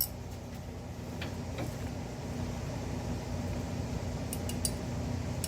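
Steady low hum with a few light metallic clinks, as hand tools and brake parts are handled.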